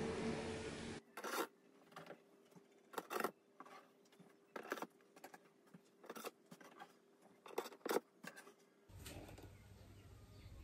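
A metal spatula scraping and tapping as baked scones are lifted off a baking tray onto a wire cooling rack: short separate scrapes about once a second. It opens with about a second of steady hum from the open oven, cut off abruptly.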